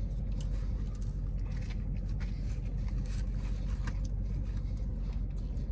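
Steady low rumble of a car idling, heard from inside the cabin, with faint chewing over it.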